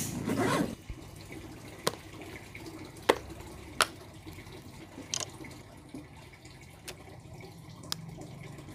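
A zipper on a fabric bag pulled open in one quick rasp, then a handful of sharp, separate clicks and taps about a second apart as a plastic case and earphones are handled.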